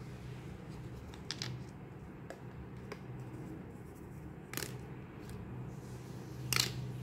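Light plastic clicks and knocks as hollow plastic toy vegetables are set down into a small plastic basket: a handful of taps, the two loudest about halfway through and near the end. A low steady hum runs underneath.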